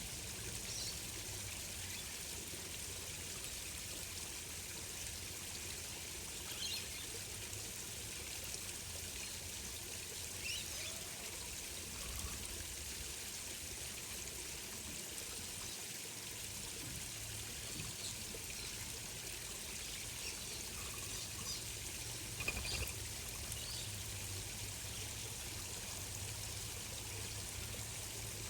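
Steady flowing, trickling water, with a few faint short bird chirps scattered through it.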